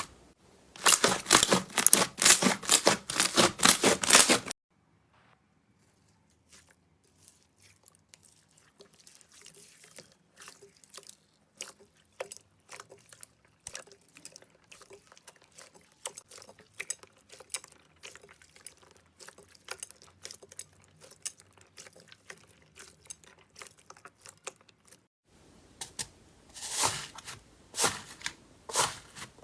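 Slime being squeezed and pressed by hand, making dense runs of crackling clicks. After a few seconds there is a short silence, then a long quieter stretch of faint scattered clicks and pops, and the loud crackling returns near the end.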